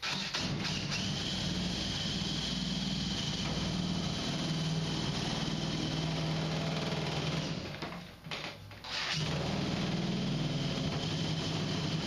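Cordless drill driving a drill-mounted sheet-metal shear attachment, cutting through the steel panel of a furnace cabinet: a steady motor whine with the chatter of the blades. It stops briefly about eight seconds in, then carries on cutting.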